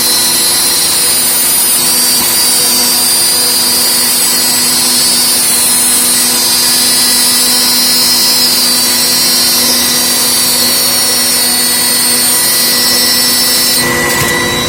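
CNC machine running steadily, a loud even machining noise with a whine. Its tone changes about 14 seconds in.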